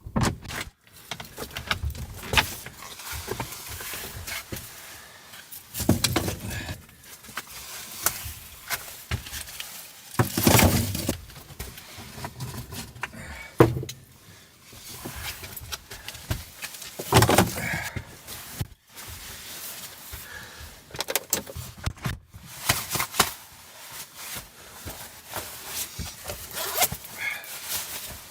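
Irregular knocks, clicks and rustling of things being handled at close range, with louder bursts about ten and seventeen seconds in.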